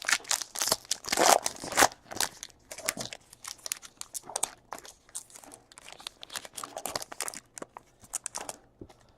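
Trading-card pack wrappers crinkling and being torn open, a dense run of irregular rustles and crackles that is loudest in the first two seconds.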